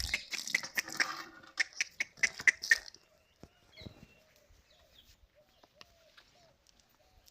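Animal calls: a busy stretch of rattling, chirping sounds for about three seconds, then only faint short chirps.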